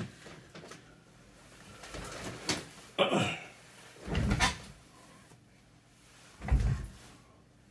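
Three separate short bumps with some rustling, about three, four and a half and six and a half seconds in; the last one is the heaviest.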